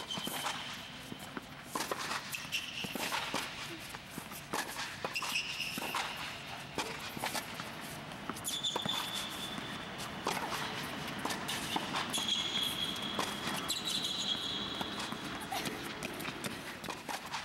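Tennis rally on an indoor hard court: repeated sharp racket-on-ball hits and ball bounces, with footsteps and several short high squeaks of tennis shoes on the court surface.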